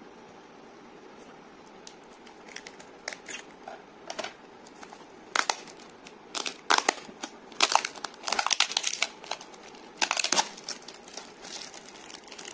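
Clear plastic shrink-wrap crinkling and crackling as it is torn and peeled off a small cardboard box, in irregular crackles that start about two seconds in and are loudest in the middle.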